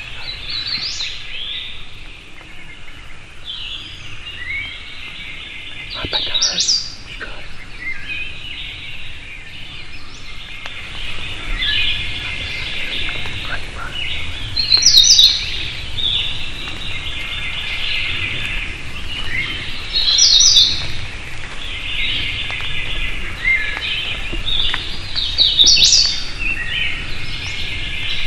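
Several songbirds singing and chirping at once in a hardwood forest, with one louder song phrase coming back every several seconds over a steady chorus of higher chirps.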